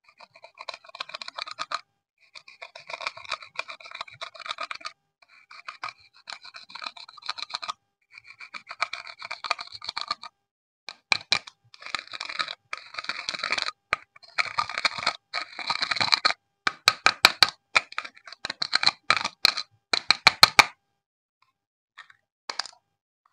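Clear slime being squeezed and stretched by hand, crackling with many small clicks in stretches of a few seconds with short pauses between them. In the second half the clicks come denser and sharper, then stop a couple of seconds before the end, leaving only a few faint pops.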